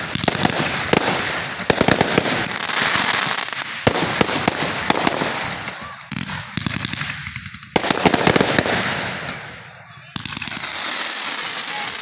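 Fireworks going off in quick succession: about five bursts, each starting sharply and trailing into a dense crackle that fades over a second or two.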